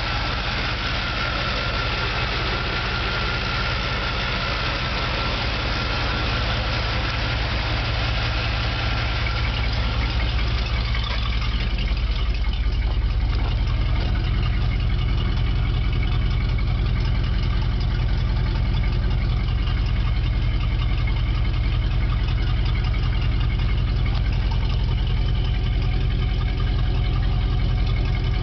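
1977 Chevrolet pickup's engine idling steadily, a little louder from about twelve seconds in.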